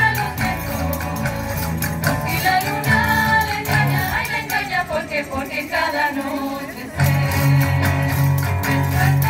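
A women's student tuna singing together to strummed guitars and other plucked strings, played through loudspeakers. The low accompaniment thins out for a few seconds mid-way, under a falling sung line, and comes back in strongly about seven seconds in.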